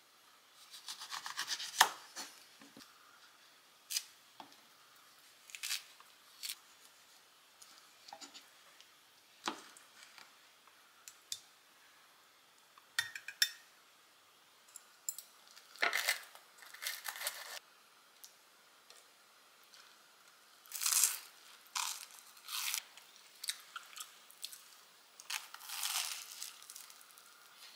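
A hallabong citrus being cut with a small knife and its thick peel torn off by hand, the segments pulled apart, heard as scattered short tearing and rustling sounds. Near the end, crisp egg toast crunching as it is eaten.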